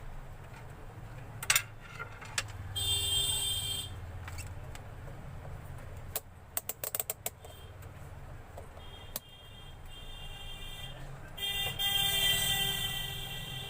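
Light clicks and taps of small parts being handled, with a quick run of clicks midway. Twice a buzzing, horn-like pitched tone sounds: about a second long early, then about two seconds near the end.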